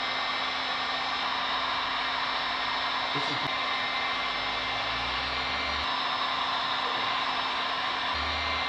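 Handheld electric heat gun running steadily, a continuous rush of blown air with a low steady hum from its motor, warming a vinyl decal.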